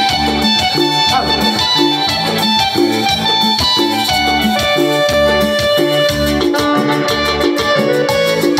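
Live band music played loud through PA speakers: an electronic keyboard melody over a steady bass beat about twice a second, a Latin dance tune.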